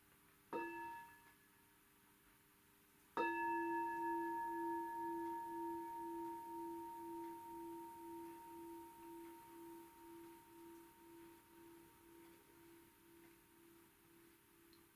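Meditation bell invited with a wooden stick. A short, quickly damped tap about half a second in wakes the bell. About three seconds in comes a full strike, the first of three bell sounds, which rings with a slow wavering pulse and fades away gradually.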